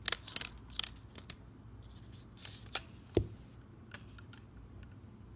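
A series of sharp plastic clicks and small knocks from a DJI Osmo Mobile handle as it is opened to get at its battery, with one heavier knock about three seconds in.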